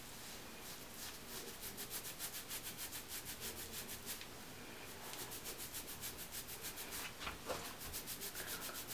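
Fingers rubbing wet bentonite clay into hair: faint, quick, rhythmic rubbing strokes, several a second.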